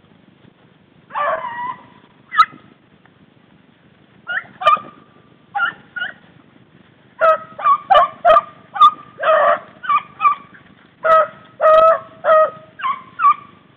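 Beagles baying on a rabbit's scent: a few scattered bays at first, then a quick run of them, several a second, from about halfway through.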